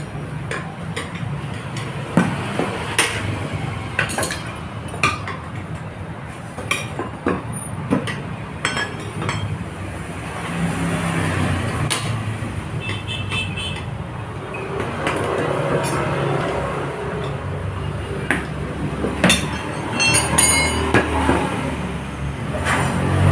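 Steel hand tools and a Yamaha Mio scooter wheel rim being handled on a concrete floor: scattered knocks and clicks, with a few bright, ringing metal clinks about halfway through and again near the end, over a steady low hum.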